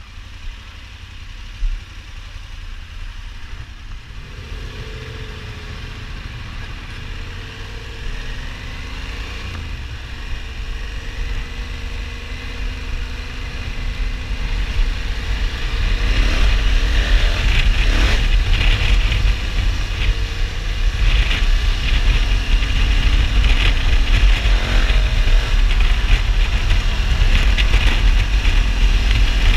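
KTM 1290 Super Adventure S V-twin engine pulling away and accelerating through the gears, its pitch rising again and again. Wind buffeting on the microphone grows louder as speed builds and is loud from about halfway through.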